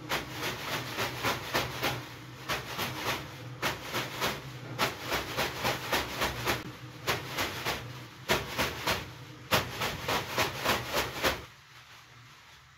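Leafy bath brooms (veniki) swished and patted over a person's body in quick runs of strokes, the leaves rustling with each stroke; the strokes stop shortly before the end.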